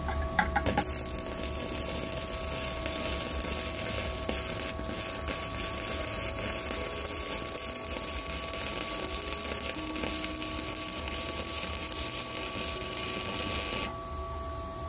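Stick welding arc from a WeWeld ARC 220 inverter welder at its 224 A maximum, burning a 4 mm E6013 rod. A few sharp strike crackles about half a second in, then a steady, even crackle of a smooth-running arc for about thirteen seconds, breaking off near the end.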